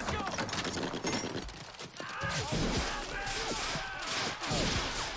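Gunfire from a war-film battle scene, a rapid volley of shots, with men's voices shouting over the noise of battle from about two seconds in.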